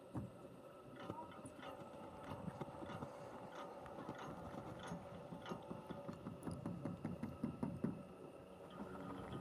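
Chairlift haul cable and chair grip rolling over the lift tower's sheave wheels: a rhythmic clatter of clicks and knocks over a faint steady hum, loudest about seven to eight seconds in.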